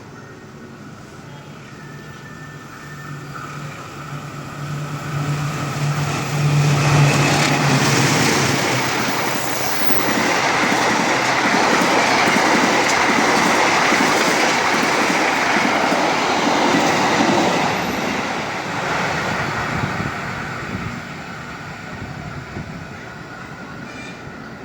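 A train passing close by on the rails. The noise builds over several seconds, stays at its loudest for about ten seconds as the wheels run past, then fades away.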